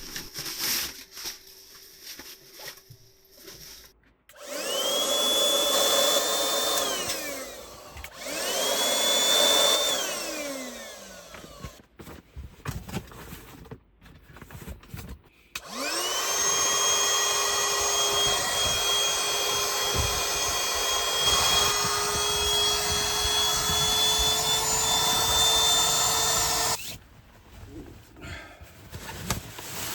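Small electric motor whirring in three runs, each spinning up to a steady high whine and then winding down: two short runs, then one of about eleven seconds.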